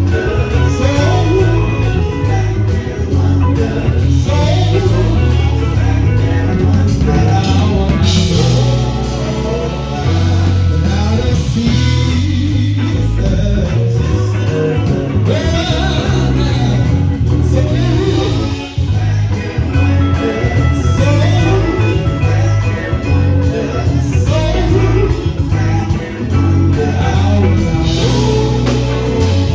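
Male gospel vocal group singing through handheld microphones, backed by a live band that includes a drum kit with cymbals.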